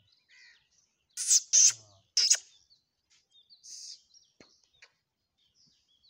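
Small birds chirping in the background. A few short, loud hissing bursts come about a second in, again near two seconds, and once more near four seconds.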